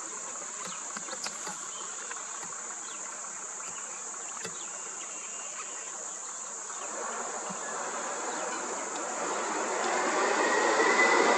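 Steady high-pitched drone of insects, joined from about seven seconds in by the noise of a road vehicle that grows steadily louder until it is the loudest sound.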